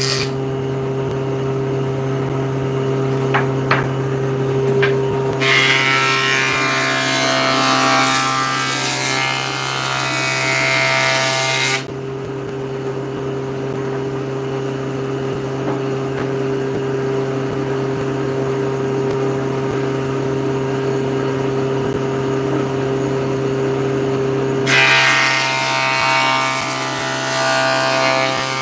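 Table saw running with a steady motor hum, cutting through wooden boards twice: once from about five seconds in to about twelve, and again from about 25 seconds in, the blade noise much louder during each cut.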